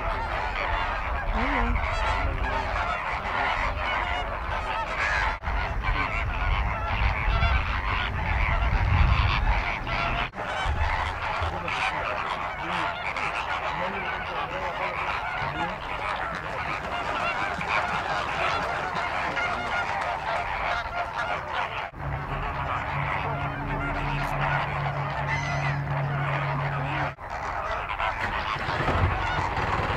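A large flock of flamingos calling together, a continuous dense goose-like honking and gabbling from many birds at once.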